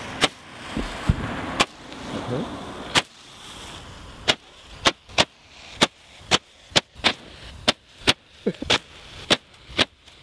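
Dragon eggs firework going off in a string of sharp pops, about one a second at first and then two or three a second from about four seconds in.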